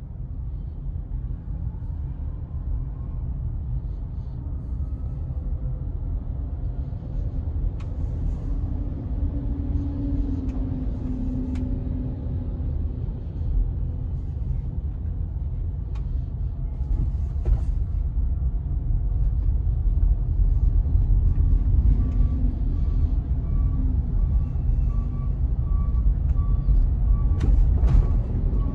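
Tesla Model Y Dual Motor driving, heard from inside the cabin. The electric car makes no engine sound, so what is heard is a steady low road and tyre rumble that grows louder about two-thirds of the way in, with a few faint clicks over it.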